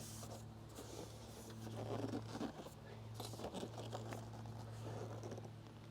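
Faint scuffing, light knocks and scraping as a solar panel is set down and shifted into place on a travel trailer's roof, over a steady low hum.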